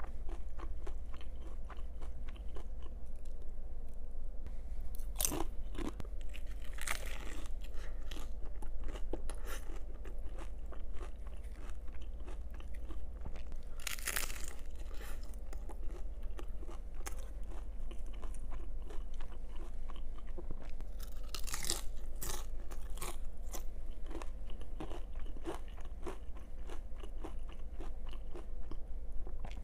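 Close-miked crunching and chewing of a crisp hard-shell taco: bites crack the shell in loud crunches, about five seconds in, around fourteen seconds and again around twenty-two seconds, with steady crackly chewing between, over a faint low hum.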